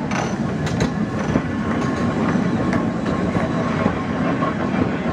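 Manx Electric Railway open crossbench tram car No. 32 passing close by on the track: a steady running noise of wheels on rail, with scattered clicks.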